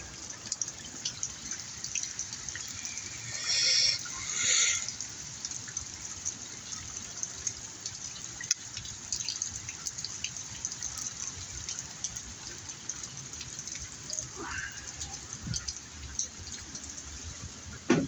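Rainwater dripping and trickling steadily now that heavy rain has eased to light rain, with many small scattered drips. Two short high-pitched squeaks come about three and a half and four and a half seconds in.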